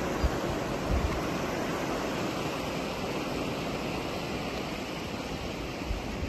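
Steady wash of sea surf and wind, with a few short low thumps near the start and near the end.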